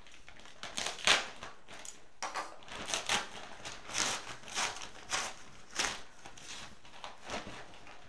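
Plastic Priority Mail mailing envelope being opened by hand, crinkling and rustling in a run of uneven bursts, the loudest about a second in.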